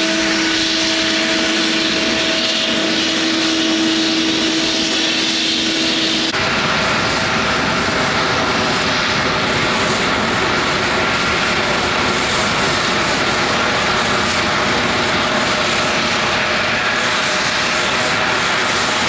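Airliner engines running close by: a steady whine of held tones over a hiss. About six seconds in it cuts abruptly to a fuller, deeper engine noise that holds steady.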